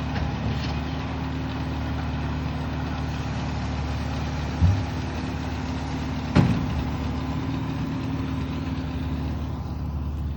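Tractor engine running steadily. A low thump comes about four and a half seconds in, and a sharper knock about two seconds later.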